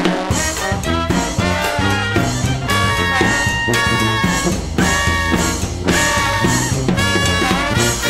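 Swing-era big band music, brass section playing held notes over a steady beat.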